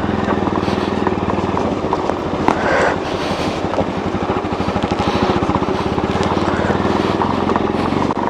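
Motorcycle engine running at low road speed with a fast, even exhaust beat, while the bike is ridden over a rough off-road track.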